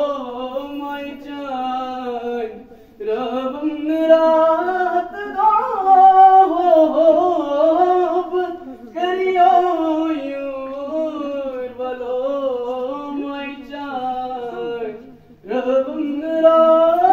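A boy singing into a handheld microphone, long held phrases with wavering ornamented pitch, broken by three short pauses.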